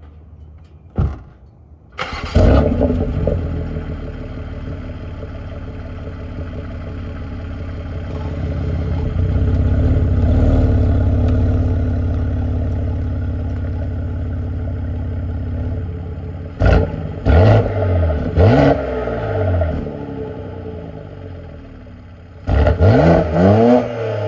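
BMW X3 M's twin-turbo straight-six breathing through a single mid-pipe exhaust: after a short knock, the engine starts with a loud flare about two seconds in and settles into a steady run. Later come several sharp revs rising and falling in pitch, and another burst of rising revs near the end as the car moves away.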